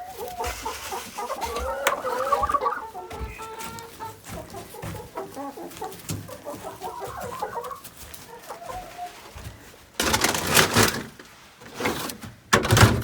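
Backyard hens clucking and murmuring in their coop, a run of short calls, then a few loud rustling or scraping noises from about ten seconds in.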